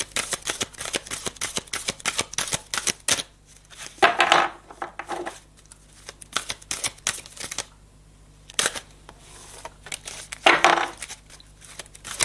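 A deck of divination cards being shuffled and handled by hand: a quick run of card clicks, then two brief swishing slides, about four seconds in and near the end.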